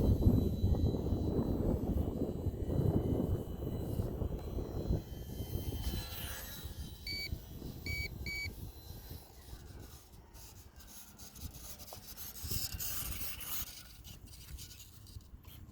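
Wind buffeting the microphone as a low rumble, strongest for the first five seconds and then easing off. Three short, high electronic beeps come in quick succession partway through.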